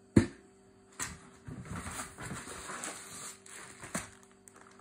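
A sharp thump just after the start, then handling noise: a cardboard box in plastic wrapping being picked up and rustled, with a knock about a second in and another near the end.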